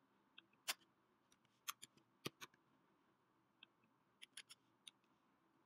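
Faint computer keyboard keystrokes and mouse clicks, about ten sharp clicks in uneven little groups, with near silence between them.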